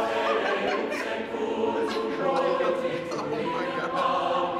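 Several people's voices overlapping in long, drawn-out cries, held together in a group.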